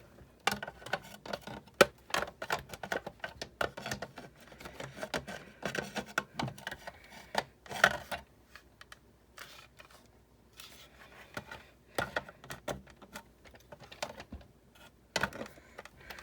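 Parts of a Big Shot die-cutting machine being handled and fitted back together: irregular clicks, taps and light knocks.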